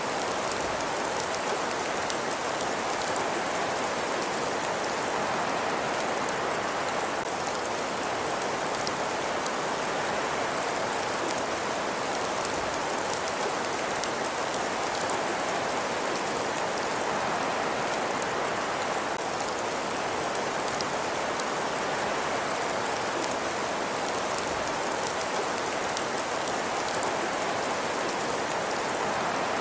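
Steady ambience noise: an even hiss with a dense, fine patter of tiny ticks, unchanging throughout.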